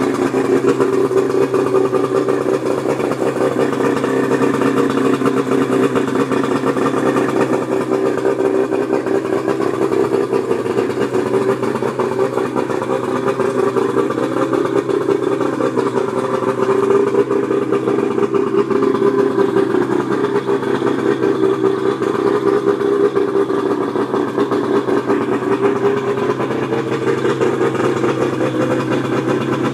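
1995 Johnson 50 HP two-stroke outboard motor idling steadily.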